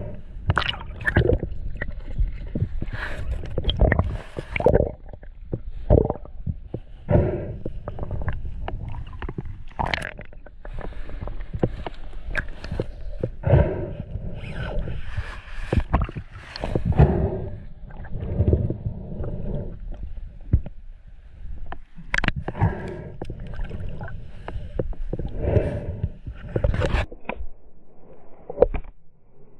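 Muffled underwater sound: gurgling, rumbling water with irregular sharp knocks and scrapes throughout.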